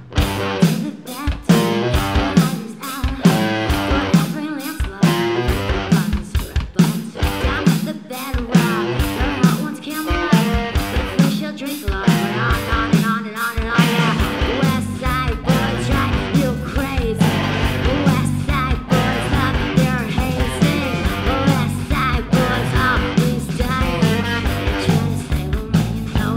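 Live rock band playing loud, with electric bass guitar and a drum kit keeping a steady beat.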